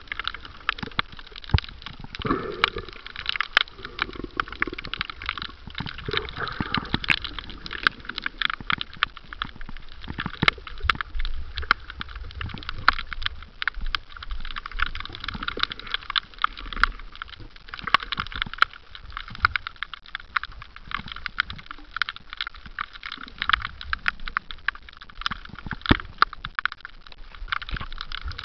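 Underwater sound picked up by a submerged camera: a dense, irregular crackle of sharp clicks over a low water rumble.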